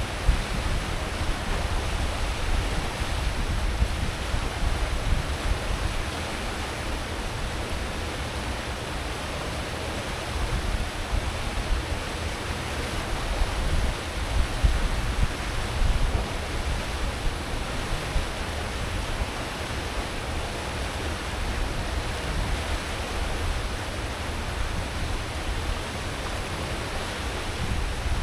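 Steady rush of a cruise ship's churning wake behind the stern at full speed, over a deep rumble from the ship's engines and propellers.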